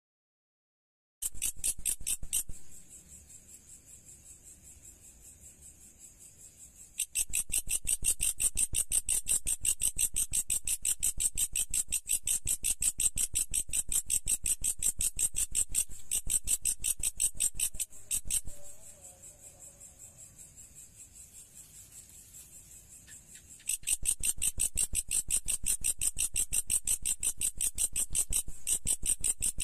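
Insect stridulation: a fast, even train of high-pitched chirping pulses. It starts about a second in and twice falls much quieter for several seconds.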